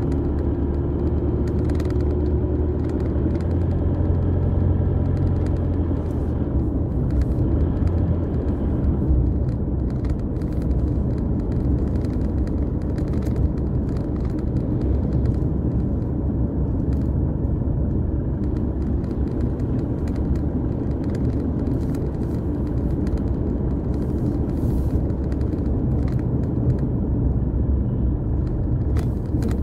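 Car driving on a rough unpaved road, heard inside the cabin: a steady low rumble of engine and tyres, with an engine hum in the first few seconds and scattered small knocks from the bumpy surface.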